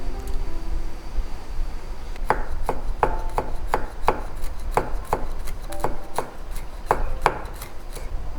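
Knife chopping on a cutting board: a string of sharp, uneven chops, roughly two a second, starting about two seconds in, over a steady low rumble.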